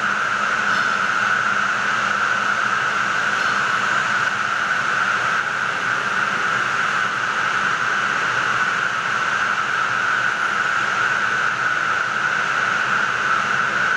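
Circular looms weaving raffia tape fabric, running with a loud, steady mechanical hiss and whir that has a strong high-pitched band and does not change.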